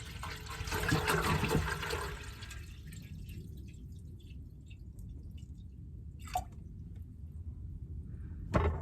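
Water running into a camp percolator pot for about two and a half seconds, then stopping. After that only a low hum, with a short knock later on and another just before the end.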